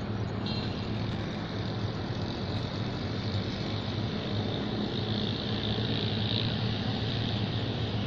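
Steady car and traffic noise heard from inside a car: a low engine hum under an even road-noise haze.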